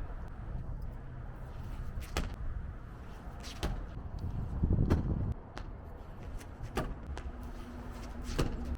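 A few sharp knocks spaced a second or more apart over a low rumble, with a louder low rush of noise about halfway through.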